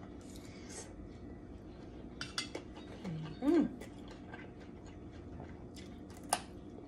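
Eating sounds: quiet chewing and a few light clinks of cutlery, a short hummed 'mm' a little past halfway, and one sharp crunch near the end as a raw carrot stick is bitten.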